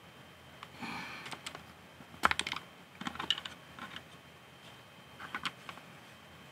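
Small Lego plastic pieces clicking and clattering as they are pried loose with a metal pick and handled: irregular clusters of light, sharp clicks, the loudest group a little over two seconds in.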